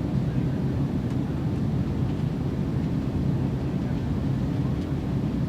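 Jet plane's engines running with a steady low rumble.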